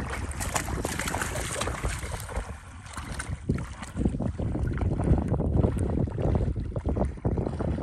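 Wading through shallow marsh water: repeated sloshing and splashing of legs moving through the water, with wind buffeting the microphone.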